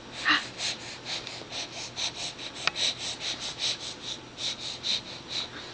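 Baby breathing out in quick, breathy huffs, about four a second, that stop near the end. A single sharp click comes a little before three seconds in.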